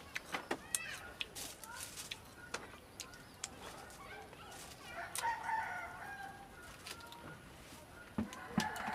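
A rooster crowing, one long call about halfway through, with more fowl calls near the end. Scattered short, sharp clicks and taps from star gooseberries being picked and dropped into a clay mortar.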